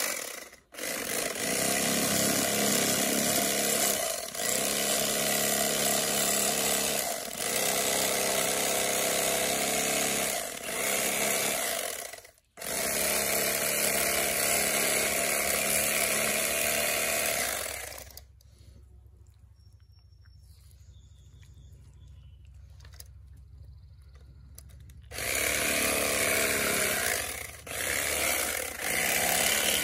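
Corded electric fillet knife running with a steady buzz as it cuts through a bass, stopping briefly a few times. About eighteen seconds in it goes off for some seven seconds, then starts up again.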